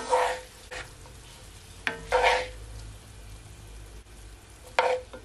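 Wooden spoon stirring browned ground beef in a skillet: three scraping strokes against the pan, about two seconds apart, with a sharp click before the second, over a faint sizzle.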